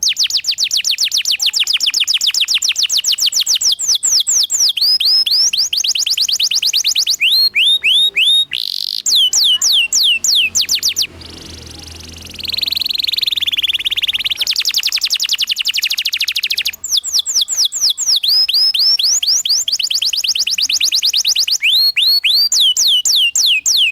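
Domestic canary singing a loud, continuous rolling song: fast trills of falling whistled notes, many a second, with a buzzier warbling passage around the middle.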